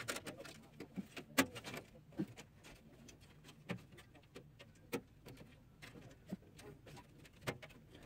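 Faint, scattered clicks and light metallic taps, about one a second: a thin metal motherboard I/O shield being pushed and knocked against the PC case's back panel opening as it refuses to seat.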